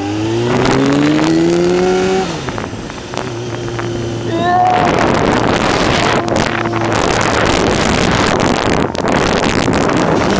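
Kawasaki motorcycle engine accelerating, its pitch climbing for about two seconds before the rider eases off; it then runs steadily. From about halfway, wind rushing and buffeting over the onboard microphone covers most of the engine.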